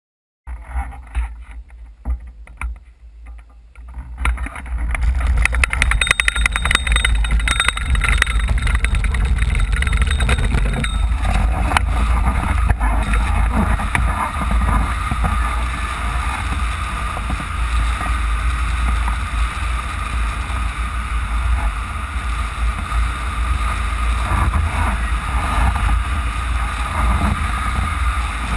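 Wind rushing over the microphone of a camera mounted on a hang glider in flight, a steady rush with heavy low buffeting. It is quieter and patchy for the first few seconds, then grows louder about four to five seconds in and holds steady.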